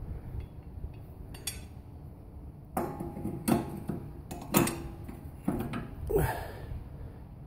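Steel snow-blade bracket and its quick-disconnect pin clanking as they are handled and fitted, about half a dozen irregular metallic knocks and clinks, some ringing briefly.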